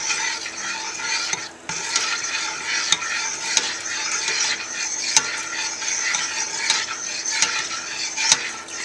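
Lye solution poured from a plastic pitcher into a stainless steel pot of melted oils while a stick blender stirs the mix: a steady splashing, stirring wash with a few light clicks against the pot. It breaks off briefly about a second and a half in.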